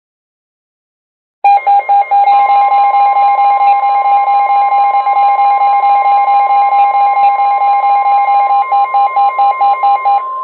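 NOAA Weather Radio's steady 1050 Hz warning alarm tone, with a weather-radio receiver's loud, rapidly pulsing alert beep over it, starting about a second and a half in. The beeping stops just before the end while the steady tone carries on. The tone signals an incoming warning broadcast, here a special marine warning.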